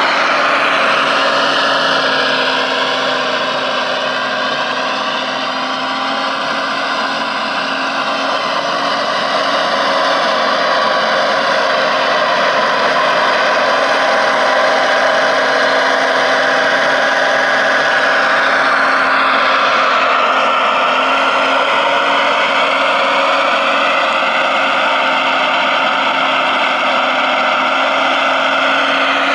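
Model hydraulic excavator's electric pump and motors whining steadily, the pitch sliding up and down as the boom and log grapple move.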